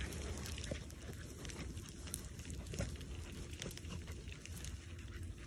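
Dry grass and brush rustling and crackling as something moves through it, with many faint scattered snaps and a low steady rumble underneath.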